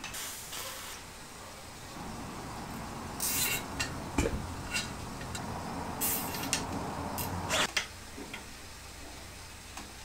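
Hands routing a gear shifter cable and its housing along a bicycle frame: rustling and sliding sounds, with a few short raspy bursts and one sharp click about four seconds in.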